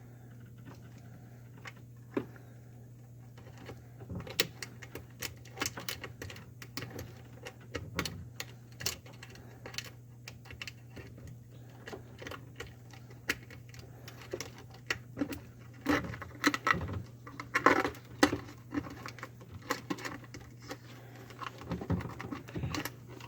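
Scattered small clicks, taps and rattles of hands working the disposal's electrical wires with a hand tool, getting busier in the second half, over a steady low hum.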